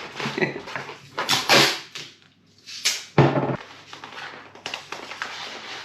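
Rustling and handling noises of a cardboard box and its wrapping being packed by hand, with a single thump about three seconds in.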